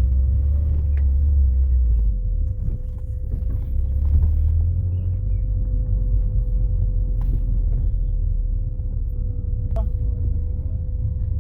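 Steady low rumble of a car on the move, with a faint steady hum running through it.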